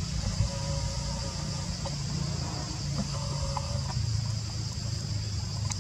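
Steady high-pitched drone of forest insects, over a continuous low rumble.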